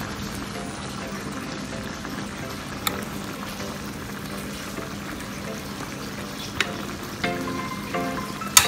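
Thick sweet-and-sour sauce simmering in a ceramic dish with a steady hiss. A metal spoon clinks lightly against the dish and plate a few times as sauce is ladled over fried fish, loudest near the end.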